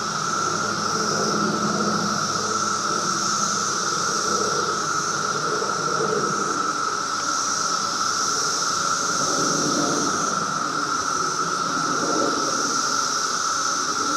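Chorus of Brood X periodical cicadas, a dense, non-stop drone like a burglar alarm: a steady mid-pitched tone with a higher buzz that swells and fades every couple of seconds.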